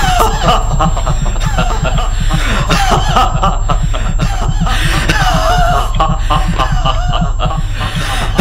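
A man's laughter and vocalising over a film soundtrack with a fast, regular low pulse.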